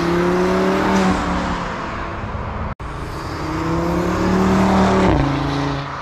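2018 Audi RS3's turbocharged 2.5-litre five-cylinder engine, fitted with a 4-inch turbo inlet, accelerating hard past, its note rising. The clip cuts about three seconds in to a second pass, where the note rises again and then drops suddenly near the end.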